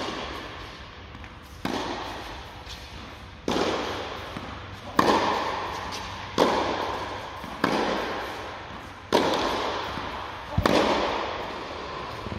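Tennis ball being struck by rackets and bouncing during a baseline rally, a sharp pock about every one and a half seconds. Each hit rings out in the echo of the enclosed indoor court.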